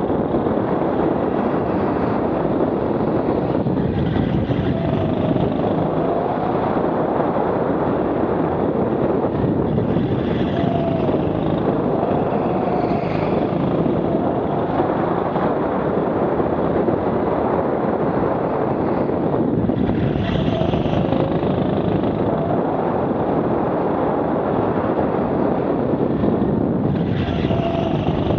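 Rental go-kart driven at racing pace, heard from the driver's seat: a steady drive noise with a motor note that rises and falls every few seconds as the kart slows for corners and accelerates out.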